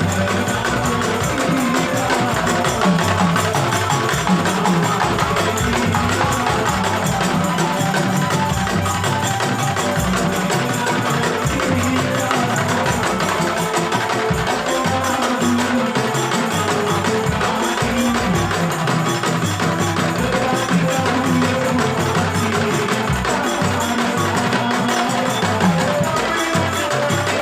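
Music with steady percussion, playing continuously at an even loudness.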